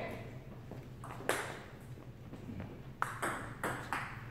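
Table tennis ball clicking off the paddles and the table: a single hit about a second in, then a quick run of four near the end as a rally starts.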